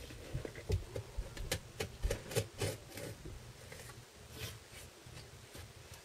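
Cardboard boxes being handled: a run of light knocks, taps and scrapes, busiest in the first three seconds, then a few scattered ones.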